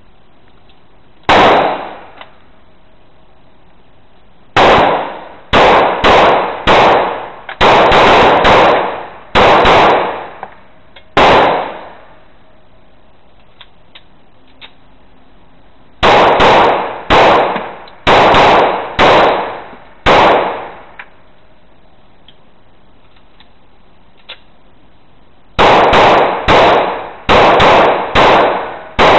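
Pistol shots fired in strings of several, each shot loud and followed by a short echoing decay off the walls of an indoor range. A single shot comes first, then three quick strings of shots with pauses of a few seconds between them.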